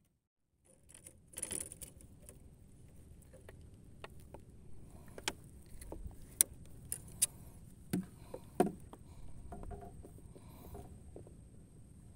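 Scattered sharp clicks and a few dull knocks from a caught fish, a hook and fishing line being handled at close range in a wooden boat.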